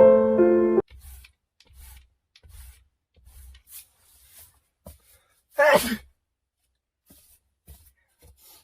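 A man sneezing once, about five and a half seconds in: a short, loud burst that falls in pitch as it ends. Piano music cuts off just before the first second.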